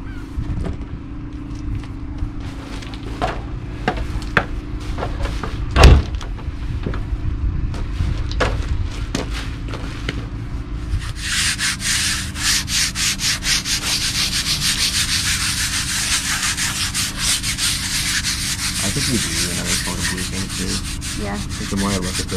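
Scattered knocks with one loud thump about six seconds in, then from about eleven seconds a hand-held sanding disc rubbed over the painted rudder in quick back-and-forth strokes: a steady, rapidly pulsing hiss.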